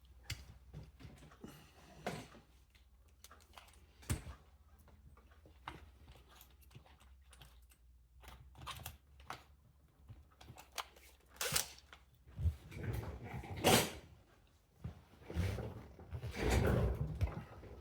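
Irregular clicks, taps and short scrapes of small tools and parts working on a die-cast toy car as it is taken apart, with louder scraping bursts in the second half.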